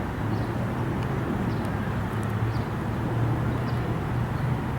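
Steady low outdoor rumble with a faint hum, and faint short high chirps about once a second.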